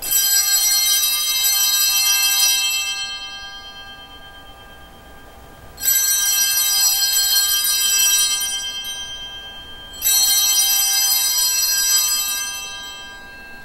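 Altar bells (sanctus bells) shaken three times at the elevation of the chalice during the consecration, each peal a bright cluster of ringing tones that fades away before the next. The rings come at the start, about six seconds in, and about ten seconds in.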